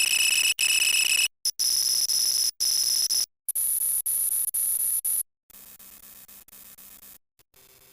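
A string of electronic alarm-like sound effects cut one after another with short silent gaps. Three loud, high-pitched buzzing tones each jump higher in pitch than the last. After about five and a half seconds they give way to much fainter, lower sounds.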